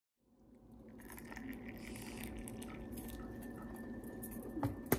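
Tea poured from a metal kettle into a small glass, a steady trickling splash, with two sharp knocks near the end.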